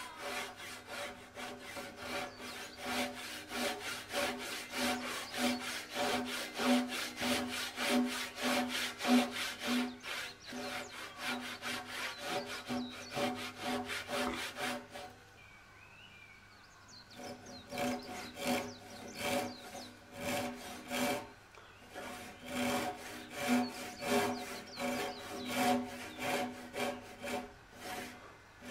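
Japanese pull saw cutting through a thick Japanese pine (matsu) beam by hand, in rapid, even strokes with a rasping, slightly ringing tone. The sawing stops for about two seconds around the middle, then picks up again at the same pace.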